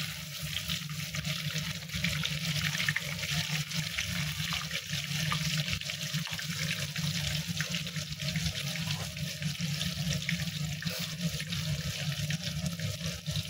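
Marinated chicken pieces sizzling as they are lightly pre-fried in oil in a pan: a steady hiss with many small crackles and a low hum underneath.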